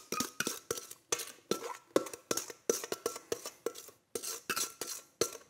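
Spatula scraping and knocking against a stainless steel mixing bowl as custard mixture is scraped out of it into a steel pot: a quick, irregular run of sharp taps, several with a brief metallic ring.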